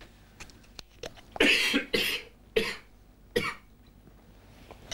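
An elderly man coughing four times in quick succession, about half a second to a second apart. Before the coughs come a few faint clicks from the plastic water bottle in his hands.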